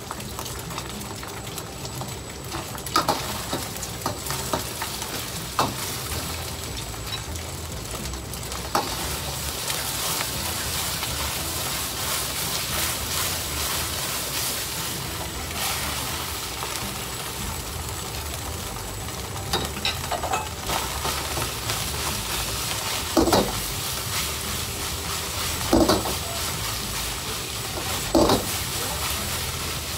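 Egg and rice frying in a wok for Japanese fried rice, a steady sizzle, with the metal ladle knocking and scraping against the wok every few seconds as it is stirred; the knocks are loudest in the last third.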